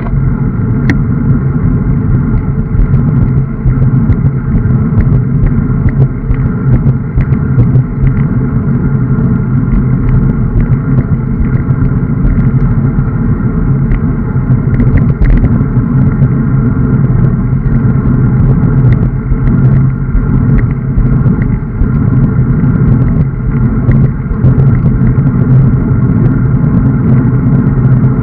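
Steady wind rush and tyre rumble on the microphone of a camera riding on a road bicycle over asphalt, with frequent small knocks from bumps in the path.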